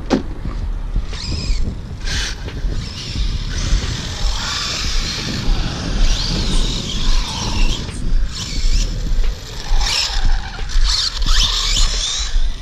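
Redcat Earthquake 8e RC car driving hard on concrete: its 1350kv brushless motor whines, rising and falling in pitch with the throttle, while its tape-wrapped off-road tyres squeal as it slides and drifts. A single knock comes at the very start.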